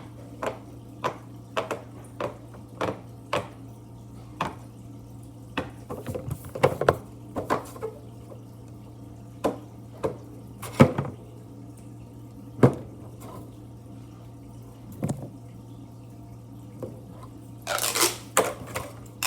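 Bubbles of a pop-it fidget toy being pressed through one after another: sharp pops, about one or two a second, with a quicker run about a third of the way in and a dense flurry near the end. A steady low hum runs underneath.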